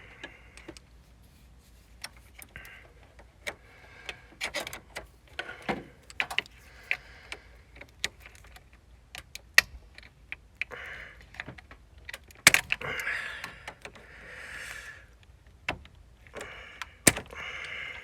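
Irregular metallic clicks, taps and scraping as hand tools work a car battery cable terminal clamp, with a few sharper clacks among them.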